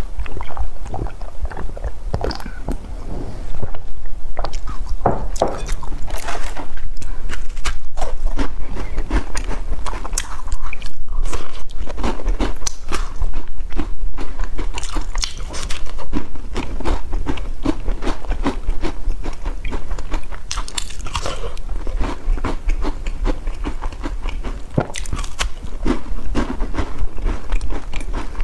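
Biting and crunchy chewing of a crisp sesame-seed biscuit: a dense run of short crackles with brief pauses between mouthfuls.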